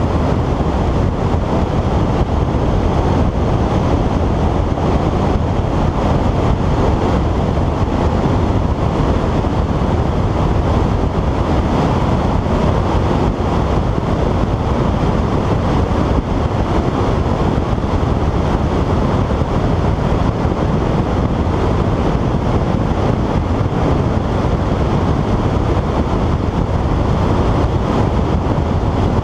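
Steady, loud rushing of airflow buffeting the onboard camera's microphone on a Skywalker FPV plane in a dive.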